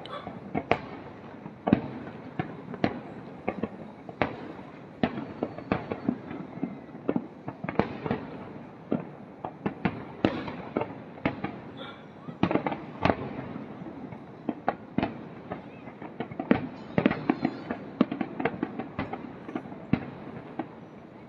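Aerial fireworks bursting in a continuous barrage: irregular sharp bangs, often several a second, over a steady rumbling wash.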